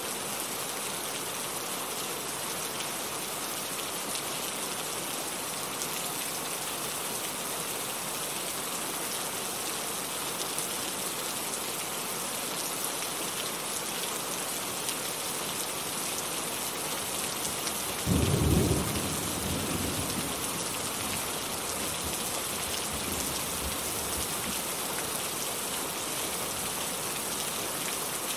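Heavy rain falling steadily. About two-thirds of the way in a short, loud, low clap of thunder breaks in and rumbles away over a couple of seconds.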